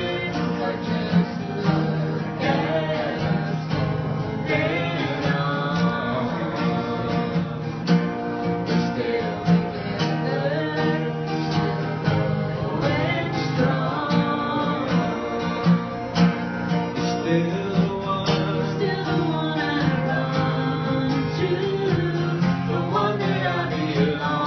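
Live music: a guitar strummed along with singing.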